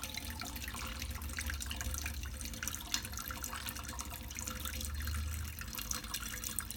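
Tap running steadily into a sink, with small splashes and drips as a small pet bird bathes in the stream.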